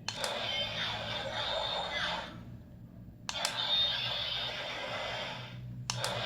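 DX Ultraman Omega transformation device playing the sound effects of a limited Zero and Z star stone through its small built-in speaker. There are three noisy bursts, each set off by a sharp click: one at the start, one about three seconds in, and one near the end.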